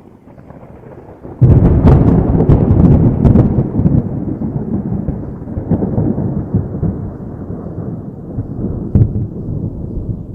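A thunderclap: a sudden loud crack about a second and a half in, breaking into a rolling rumble with several sharp cracks, and a further crack near the end before the rumble slowly fades.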